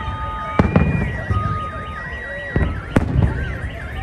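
Fireworks shells bursting with three loud bangs, each followed by a low rumble: one under a second in, then two close together near the end. A car alarm warbles quickly up and down underneath.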